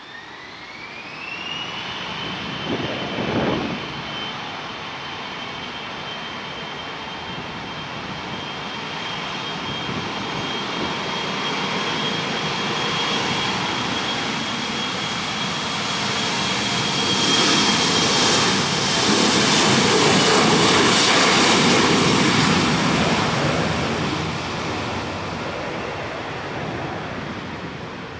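Delta Connection Embraer E175's twin GE CF34-8E turbofans spooling up to takeoff power with a rising whine, then holding a steady high whine under a growing jet roar as the jet rolls down the runway. The roar peaks as it passes, about two-thirds of the way through, and fades near the end.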